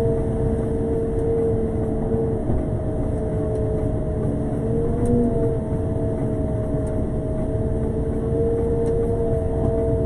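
Road sweeper driving: a steady low engine rumble with a constant two-note machinery whine that wavers briefly about five seconds in.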